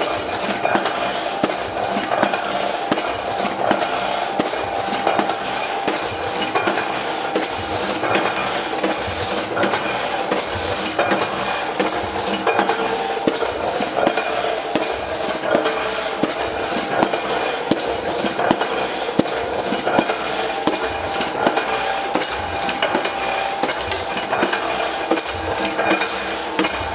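Heidelberg Windmill platen letterpress running and printing, a steady, dense clatter of metallic clicks and knocks from its moving rollers, ink ratchet and linkages.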